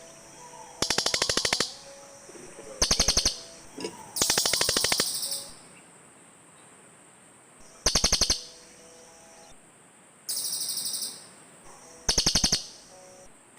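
Cililin birds calling back and forth in a series of short, rapid, buzzy trills. There are about seven bursts, each half a second to a little over a second long, with pauses of a second or two between them, as on a lure recording.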